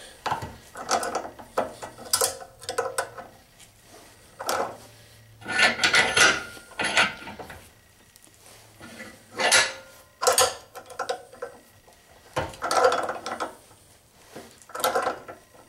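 Steel pliers jaws clicking, clinking and scraping on a bolt's nut held in a bench vise as the pliers are set on, turned and reset, in irregular metallic strokes with the loudest cluster about six seconds in.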